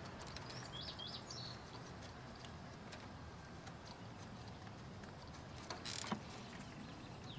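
Faint outdoor background with a few short bird chirps about a second in, then a brief metallic clatter near the end as a socket ratchet is picked up.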